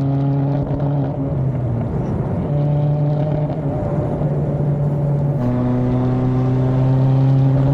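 A 2024 Subaru WRX's turbocharged 2.4-litre flat-four engine running under load on track, holding an almost steady pitch rather than climbing, with the sound breaking up briefly about two seconds in. It is misfiring: the engine would not pull past about 4,000 rpm at more than quarter throttle.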